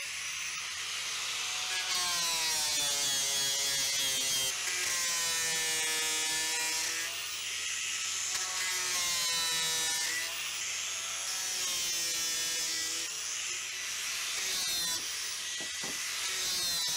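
DeWalt angle grinder with an abrasive disc running and grinding the corners of a small metal plate to round them. Its motor whine repeatedly dips in pitch as the disc bears on the plate, then climbs back.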